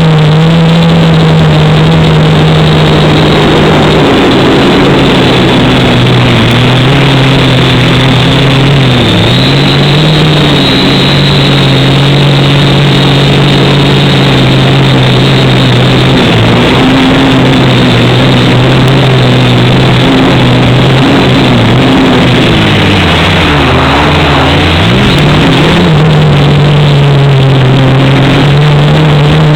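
Quadcopter's electric motors and propellers humming loudly at a steady pitch. The pitch dips and recovers several times as the throttle changes, with a longer, deeper dip late on.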